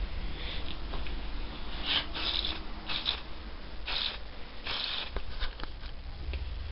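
Handling noise from a handheld camera being moved around close up: a series of short rubbing, rustling scrapes over a steady low hum.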